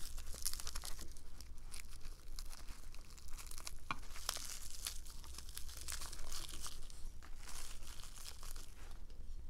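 Clear plastic wrap being pulled off a new carving knife by hand and crumpled, crinkling and tearing in a steady run of irregular crisp crackles.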